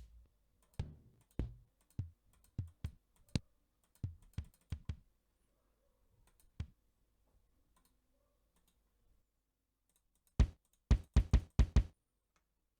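Kick drum samples in the Drumslot drum plugin, auditioned one after another as short single hits. About a dozen play in the first half with gaps between them. After a few seconds without sound, a quick run of about six hits comes near the end.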